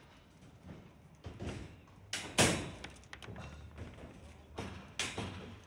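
A handful of irregular knocks and thuds, the loudest about two and a half seconds in.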